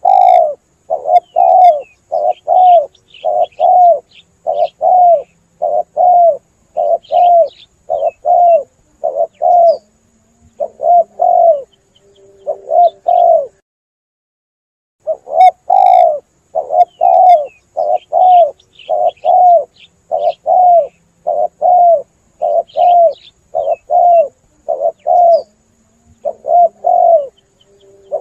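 Spotted dove (tekukur) cooing in a long, quick series of short coo notes, about two a second, with a break of a second or so midway before the series starts again. Faint small-bird chirps sound higher up in the background.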